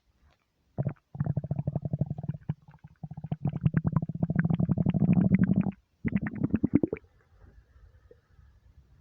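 Empty human stomach rumbling with hunger: a long, deep, rapidly pulsing growl from about a second in until nearly six seconds. A shorter growl follows just after, then it fades to a faint low murmur.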